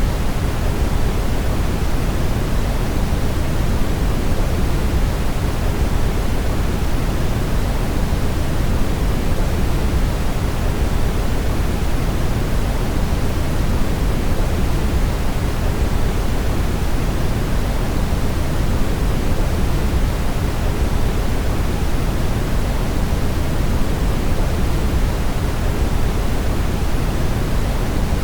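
Brown noise: a steady, unchanging rushing hiss weighted heavily toward the bass, with the treble much fainter.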